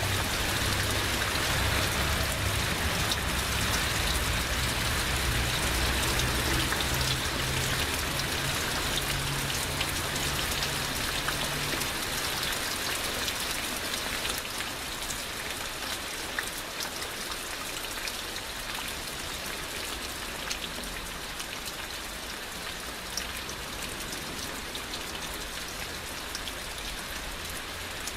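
Heavy rain falling steadily, an even hiss with many individual drops ticking through it. A low rumble underneath fades out about halfway through, and the rain eases slightly toward the end.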